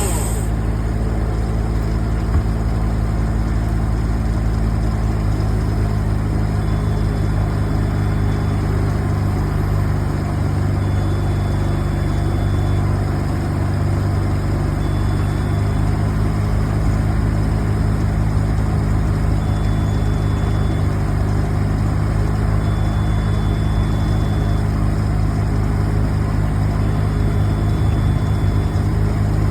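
A large engine running steadily at idle, with an even low hum and no revving. A faint thin high tone comes and goes every few seconds.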